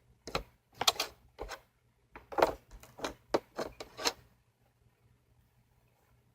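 Slime being squeezed and pulled in the hands, giving a string of irregular sharp clicks and pops that stops about four seconds in.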